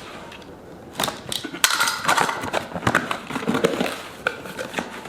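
Cardboard packaging being opened and handled: crackling and crinkling with irregular knocks and clicks, busiest from about a second in until near the end.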